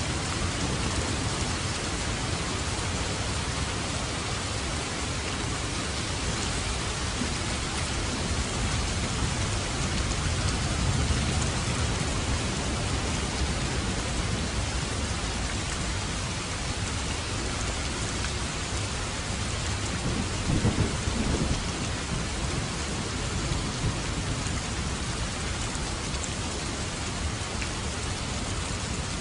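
Steady, heavy rain falling, with low rumbles of thunder: one swell about a third of the way in and a louder one about two-thirds through.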